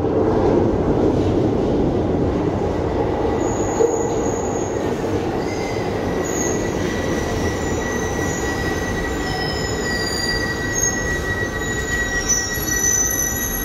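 Glasgow Subway train running into a station out of the tunnel, with steady running noise. High-pitched wheel squeals start a few seconds in, and a steady high whine joins them about halfway through.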